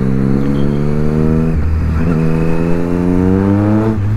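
Triumph Street Triple's inline three-cylinder engine pulling hard, its pitch rising through one gear, dropping at a gear change about a second and a half in, then rising through the next gear until another shift near the end.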